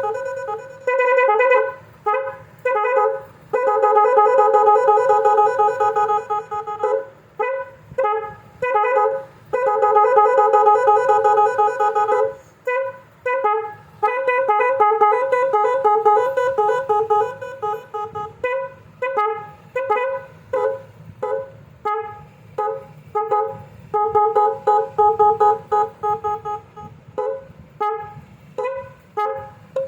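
Horn sounding a rhythmic, tune-like string of short blasts and a few longer held notes, two close pitches sounding together.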